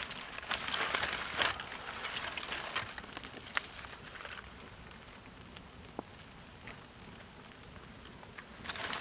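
Small campfire crackling as dry twigs are fed onto it and catch, a busy rush of crackle in the first few seconds that settles to a few scattered pops.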